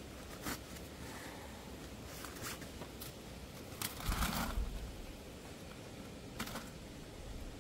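Scattered light clicks and rustles of hands handling cooking gear, with a brief low rumble of wind buffeting the microphone about four seconds in.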